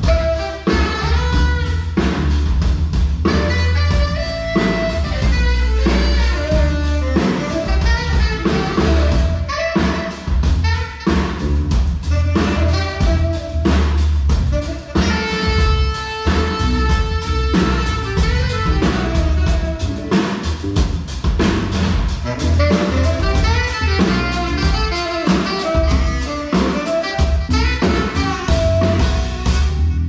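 Jazz band playing: saxophone lines over drum kit and a heavy bass line.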